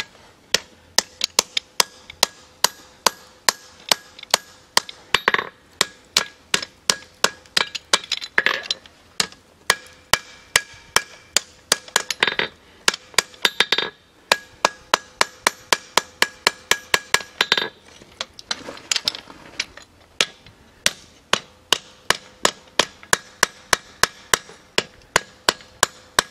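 Blacksmith's hand hammer striking a red-hot iron hinge on an anvil, about three blows a second in runs with a few short pauses, the anvil ringing on under the blows: the bends in the forged hinge are being straightened out.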